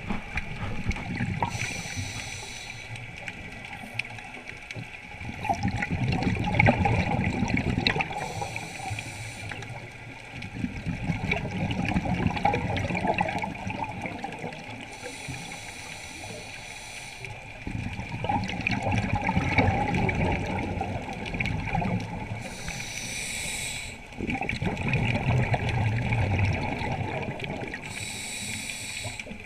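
Scuba diver breathing through a regulator underwater. Each breath is a short hiss on the inhale, followed by a longer burble of exhaled bubbles, about five breaths, one every six seconds or so.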